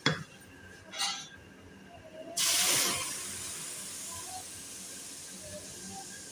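Ground onion paste poured into a hot, dry metal kadai. About two seconds in it hits the pan with a sudden loud sizzle that settles into a steady hiss as the paste's water boils off. Two short knocks come before it.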